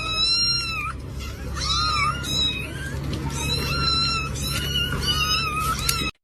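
Cat meowing repeatedly in a run of high-pitched, drawn-out meows over a steady low hum, cut off abruptly near the end.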